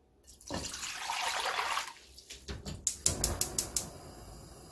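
Water pouring from a stainless-steel bowl into an empty wok, splashing for about a second and a half. A quick run of about eight sharp clicks follows.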